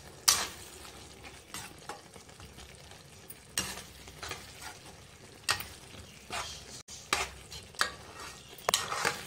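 Metal spatula stirring and scraping minced-meat masala in a nonstick wok, in separate strokes a second or two apart, over the low sizzle of the frying mixture.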